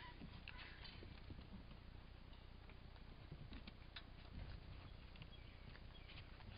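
Faint, scattered ticks and scuffles of a puppy's claws pattering on wooden deck boards as it wrestles with a collie.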